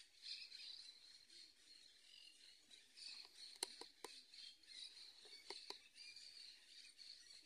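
Faint outdoor ambience of distant birds chirping: a steady, high, fluttering chatter, with a few light clicks about halfway through.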